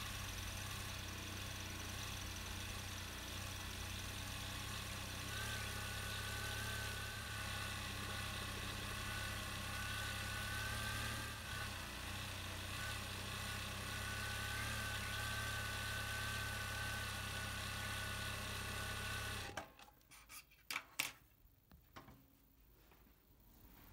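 Typical GC6880MD3Y industrial sewing machine running at a steady speed with its bobbin winder engaged, winding thread onto the bobbin, with a high whine over the motor hum. It stops abruptly about four seconds before the end, followed by a few light clicks.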